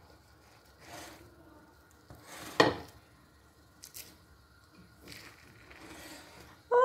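Wooden spatula scraping and scooping sticky cooked glutinous rice in a pot: a few soft rubbing scrapes, with a sharp knock of wood against the pot about two and a half seconds in. A short falling whine starts at the very end.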